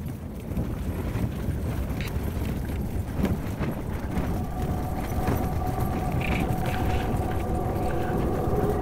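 Tent fabric rustling and flapping with a low rumble, heard from inside the tent, with many small snaps. Quiet music with held notes fades in about halfway through.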